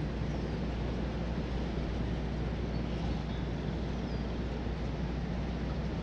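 Steady rush of water pouring over a river dam, an even, unbroken roar, with a few faint high chirps above it.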